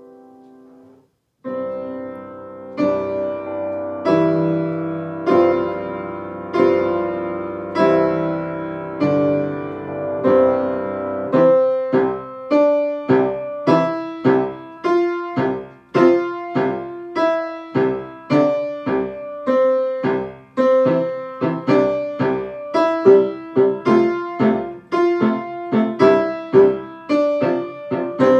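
Piano playing a simple tune. Slow, ringing chords come in about a second in, and from about the middle the tune moves to a quicker, even line of short notes.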